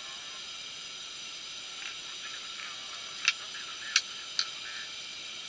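A steady high hiss, with three sharp clicks between about three and four and a half seconds in.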